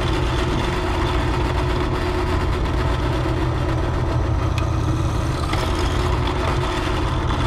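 Drill press running steadily with a twist drill bit cutting a hole through thin sheet steel, a loud even motor-and-cutting noise.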